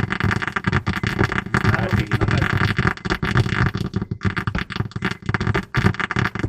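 A 2006 Honda Accord's car speakers crackling and rasping loudly, a dense crunchy noise from the faulty head unit's built-in amplifier. The noise does not follow the volume setting and carries on even with the radio switched off; the owner puts it down to failing lead-free solder joints on the amplifier board. It cuts off suddenly near the end.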